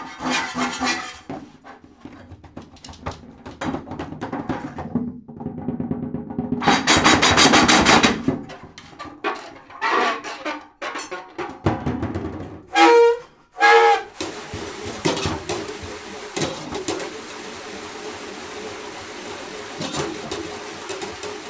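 Free-improvised solo drum kit played with extended techniques: scrapes, rubs and struck strokes. About seven seconds in comes a loud, noisy wash, and around thirteen seconds a few ringing pitched strokes. After that a long, sustained rushing sound with a held low tone carries on.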